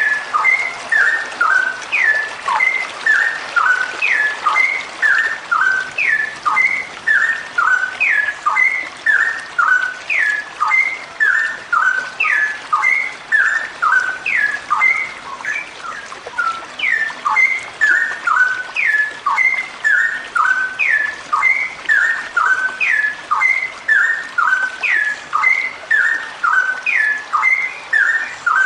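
Female straw-headed bulbul (cucak rowo) singing a long, unbroken run of rich whistled notes. Short sliding phrases repeat about once a second without pause.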